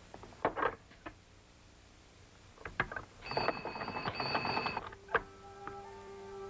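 An old telephone is handled with a few clicks, then its bell rings for about a second and a half with a rapid rattle as the operator is rung. Soft background music comes in near the end.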